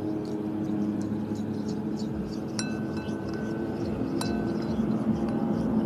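A spoon stirring slime in a bowl, with small scraping ticks and two sharp ringing clinks of the spoon against the bowl, about two and a half and four seconds in, over a steady low hum.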